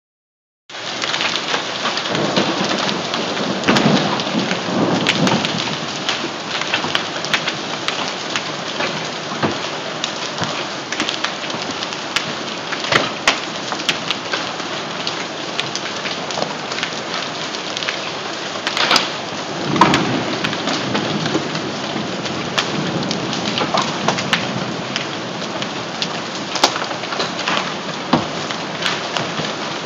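Hailstorm with heavy rain: a steady rush of rain dotted with many sharp clicks of hailstones striking hard surfaces. Two low rumbles swell up, a few seconds in and again about twenty seconds in.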